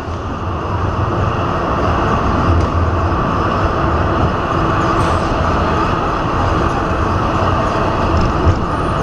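Z-class tram running along the street, heard from inside the cabin: a steady rumble of wheels on the rails and running gear. It grows louder over the first second or two, with a brief knock near the end.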